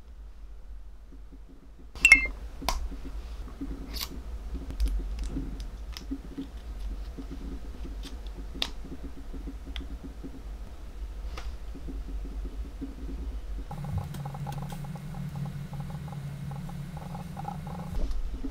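Two smartphones being handled on a desk: a sharp click about two seconds in, then scattered small clicks and taps. A steady low hum comes in near the end and stops just before it.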